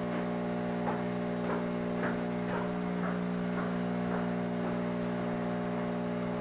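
Steady low hum of running aquarium equipment, with a string of short, falling water plinks about two a second that die away near the end.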